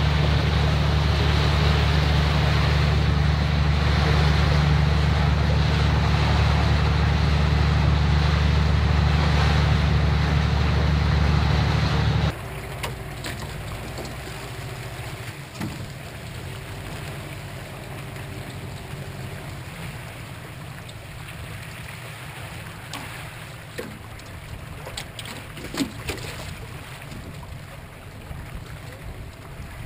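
Boat outboard motor running steadily at speed, a loud low hum with water rushing past the hull. About twelve seconds in it cuts to a much quieter mix of wind and water around a small aluminium boat, with a few light knocks.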